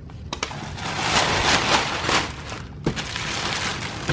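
Packaging rustling and crinkling as hands handle the contents of a cardboard subscription box, a noisy rustle that swells and eases several times.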